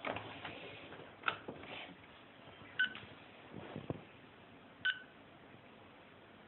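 Piezo buzzer on an Arduino-built airsoft bomb prop giving two short, high beeps of the same pitch about two seconds apart as the prop powers up and boots. Before them, clicks and rustling from a USB cable being plugged in.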